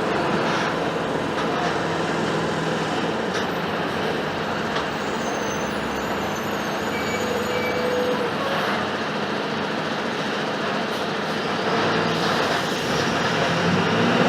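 Mercedes-Benz OF-1721 BlueTec 5 bus's diesel engine running steadily, with road and body noise of the moving bus.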